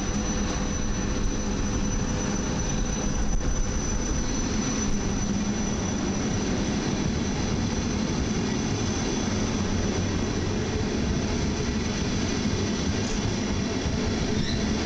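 Double-deck electric passenger train pulling away from the platform and gathering speed past the listener: steady rumble of wheels and running gear on the rails with a low electric hum.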